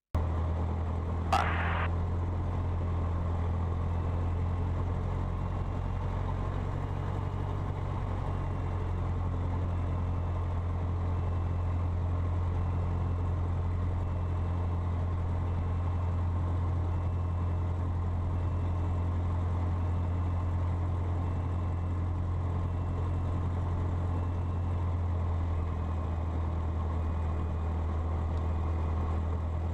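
Cessna 152's four-cylinder Lycoming engine running steadily on the ground before takeoff, a constant low drone with no change in speed. A short sharp noise stands out about a second in.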